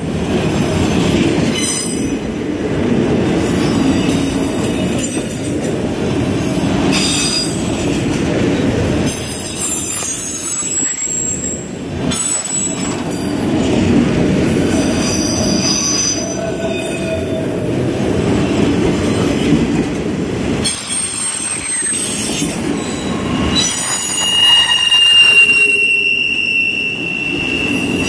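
CSX autorack freight train rolling past close by: a steady rumble of steel wheels on rail, with short high-pitched squeals coming and going. A long, steady squeal sets in about four seconds before the end.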